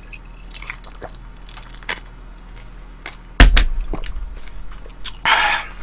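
A few faint clicks, then one sharp, heavy thunk about three and a half seconds in: a drinking glass set down on the table. A short rush of noise follows near the end.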